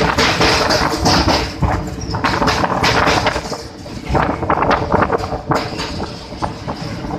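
A moving train rattling, with uneven clatter and knocks over a faint steady hum.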